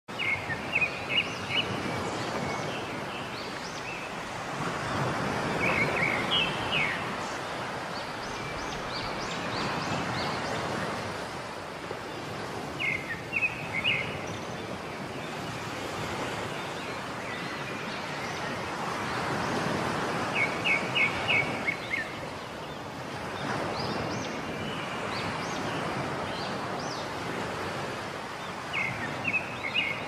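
Rushing water that swells and eases every few seconds, with songbirds chirping in short quick runs every six or seven seconds.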